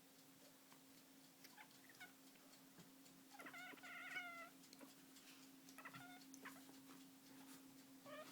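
Domestic cat chattering, jaw quivering as it makes quick chirps and trills. A longer wavering call about three and a half seconds in, with more short bursts around six seconds and near the end.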